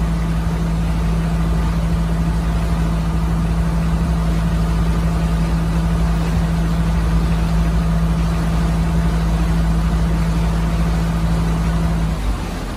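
Engine of a small open passenger launch running steadily under way, a constant low hum. Near the end the steady note drops away and the sound gets quieter as the boat slows on its approach to the dock.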